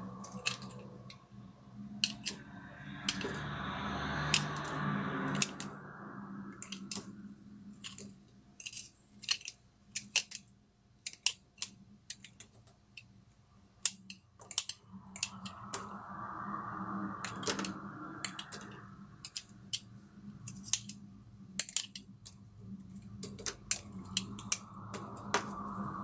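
Utility knife blade cutting into a bar of soap: a run of sharp crackling clicks as pieces snap away, with stretches of a softer scraping shave in between.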